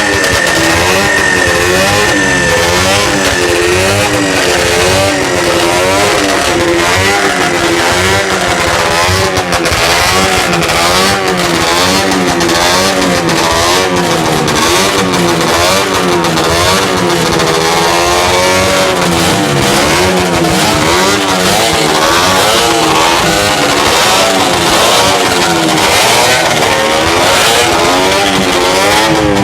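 Two early-1950s EMC 350 cc two-stroke production racing motorcycles running together, loud and continuous, their engines revved up and down again and again.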